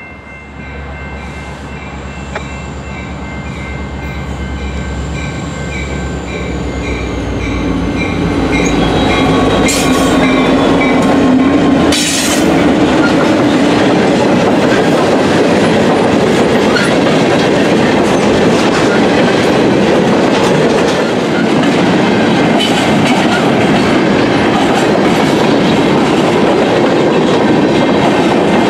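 Diesel freight locomotive approaching and growing louder, its engine drone under a grade-crossing bell ringing steadily; it passes about twelve seconds in. After that, a steady rumble of freight cars rolling by, their wheels clacking over the rail joints.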